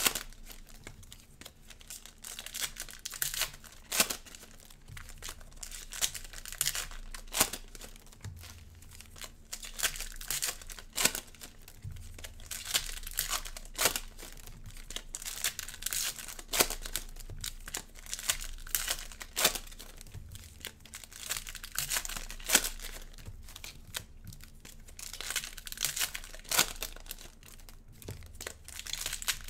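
Cellophane wrapping of Prizm basketball cello packs crinkling and tearing as the packs are ripped open, in short irregular bursts of crackle.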